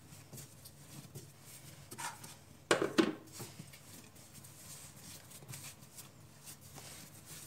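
Hands kneading and pressing bread dough on a floured countertop: soft, faint rustling and squishing, with two louder thumps in quick succession a little under three seconds in.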